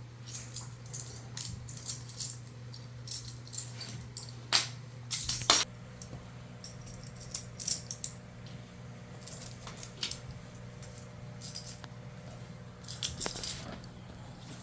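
Small hard toy pieces, magnetic blocks, wooden rails and toy cars, clicking and clattering irregularly as they are handled, with a louder clatter about five seconds in. A steady low hum runs underneath.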